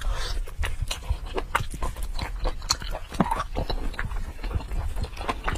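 Close-miked wet chewing and biting of braised pork hock, with many quick, sharp smacking clicks.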